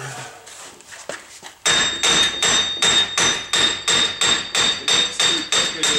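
Hammer rapidly striking a rusted-in wheel hub bearing assembly on a 2007 Dodge Nitro, about four blows a second from a couple of seconds in, each with a metallic ring. The blows are knocking the tightest side of the seized hub loose from the steering knuckle.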